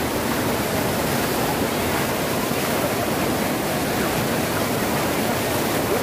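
Lake floodwater pouring steadily over a low weir and rushing through the shallows below it, a continuous rushing sound.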